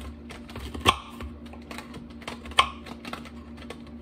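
Kitchen knife cutting a guava on a plastic cutting board: two sharp knocks of the blade meeting the board, about a second and a half apart, with lighter clicks of the knife in between.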